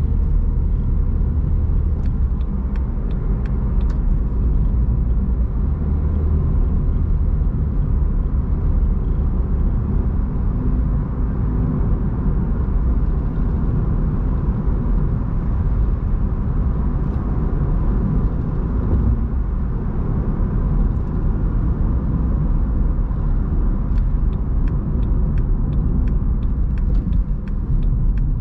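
A car driving at a steady pace: a continuous low rumble of road and engine noise, with a few faint light ticks early on and again near the end.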